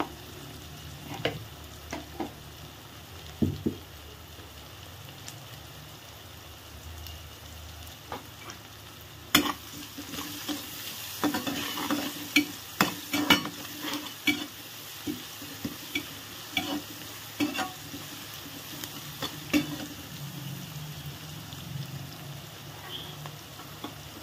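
Chopped onions with curry leaves sizzling steadily in hot oil in a kadhai. From about nine seconds in to about twenty seconds a spatula stirs them, scraping and clicking against the pan.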